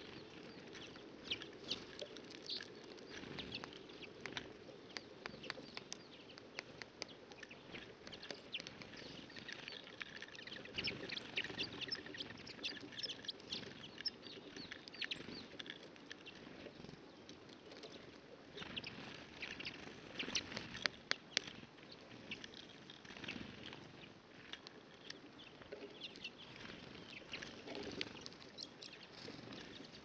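Small birds, redpolls and a blue tit, at a seed feeder: rapid irregular clicks and short high chirps as they peck seeds and call, busiest a third of the way in and again about two-thirds through.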